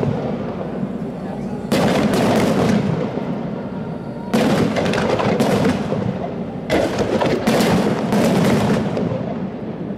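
Aerial firework shells bursting overhead: sharp bangs about two, four and a half, and seven seconds in, each followed by crackling and a long echoing tail that slowly fades.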